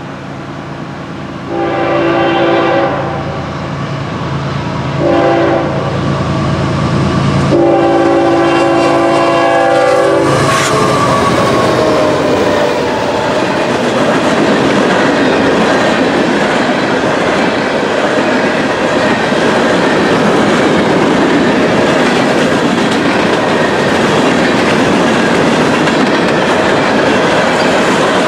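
Freight train horn sounding three blasts, the last one long, as the train approaches. The train passes about ten seconds in with a falling pitch, and a steady rumble and clatter of hopper-car wheels rolling over the rails follows.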